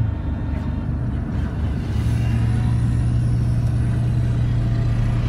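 Low engine and road rumble from a car moving slowly through road works, growing louder at the start, with a steady deep hum setting in about two seconds in.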